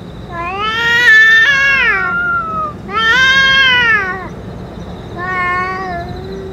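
Stray cat giving three long, drawn-out yowls, each rising and then falling in pitch. The second yowl is the loudest and the third is shorter and trails off into a low moan. These are threat yowls in a close standoff between two cats.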